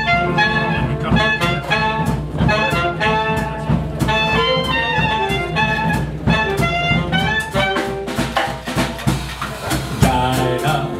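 Small hot-jazz band playing an up-tempo instrumental introduction: saxophones and clarinet carry the melody over guitar, upright bass and drums keeping a steady swing beat. The band comes in together at the very start.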